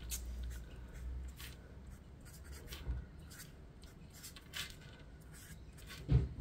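Pen writing letters on cardstock: faint, separate scratchy strokes with short pauses between them, and a short low sound near the end.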